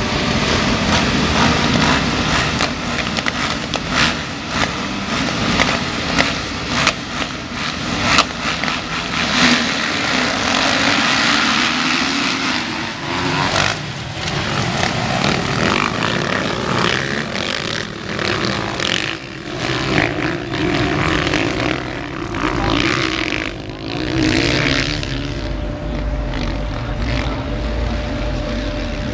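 A pack of motocross dirt bikes revving hard at the starting gate, then racing away and passing together, many engines at once. Near the end the engines fade and wind rumbles on the microphone.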